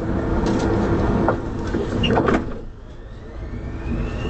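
Prague Metro M1 train: a rumble with a few knocks and thumps, the loudest about two seconds in. It then goes quieter, and the whine of the traction drive rises steadily in pitch as the train starts to accelerate.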